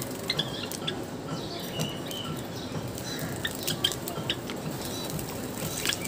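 White Java sparrow bathing in a shallow plastic bowl of water, splashing and fluttering its wings, with scattered short bird chirps and small clicks.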